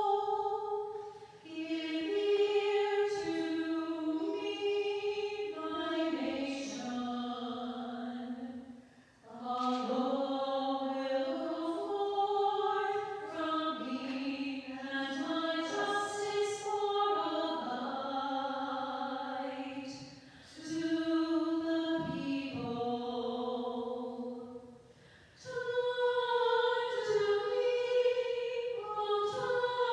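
Church choir singing an offertory hymn during Mass: a slow melody sung in phrases, with short breaks between them.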